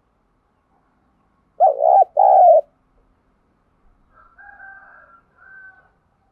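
Spotted dove cooing: two loud, low coo notes about a second and a half in. Fainter, higher-pitched bird calls follow near the end.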